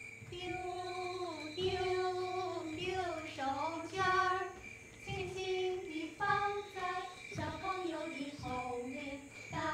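A child's voice singing a simple, slow tune note by note, with a steady high chirring underneath.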